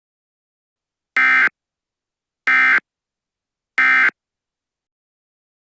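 Emergency Alert System end-of-message signal: three short bursts of SAME digital data tones about 1.3 s apart.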